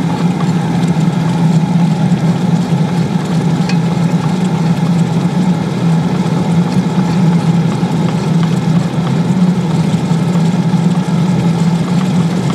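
Homemade shop-vac foundry forge burning steadily with a crucible of aluminum dog tags on top: a constant low hum over a rushing noise from the burner as the metal heats toward melting.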